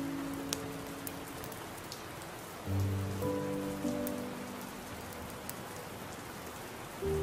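Steady rain ambience with scattered drop clicks, under slow, soft music chords; a new chord comes in about three seconds in and another near the end.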